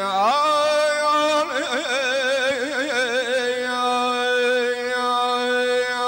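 Azerbaijani mugham in the Segah mode: a trilling, heavily ornamented melody line over a steady held drone, which settles onto one long sustained note about halfway through.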